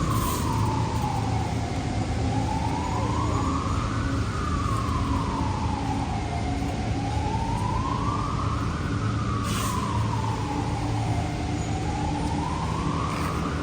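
A siren wailing in slow, even rises and falls, about one full sweep every five seconds, over a steady low rumble.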